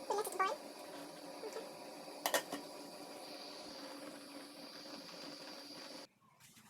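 Pot of spaghetti boiling on the stove: a steady bubbling hiss, with a few short squeaks and clicks of a utensil against the pot near the start and a sharp click a little past two seconds in. The hiss cuts off suddenly near the end.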